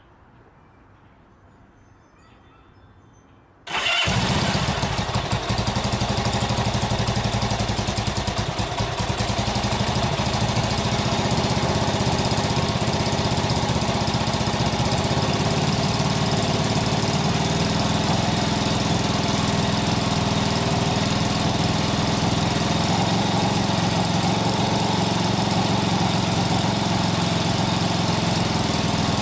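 1967 Honda CB77 Super Hawk's 305 cc parallel-twin engine catching suddenly about four seconds in, running a little unevenly for several seconds, then running steadily. The owner finds it running very rich.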